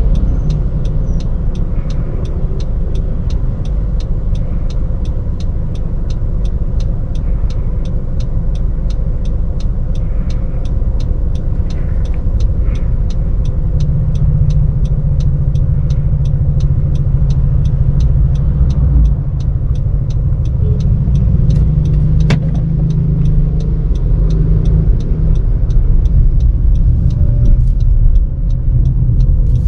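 Inside the cabin of a 2018 Honda CR-V Turbo, a steady low engine and road rumble as the SUV waits at a junction and then pulls away near the end. An even ticking, about three ticks a second, runs through it.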